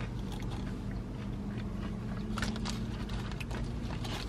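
A person chewing and biting food, with scattered small crunching clicks, over a steady low hum inside a car.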